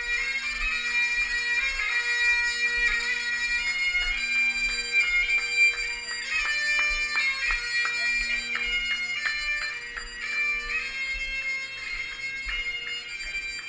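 Bagpipes playing a tune, the notes changing in steps over steady lower pitched lines.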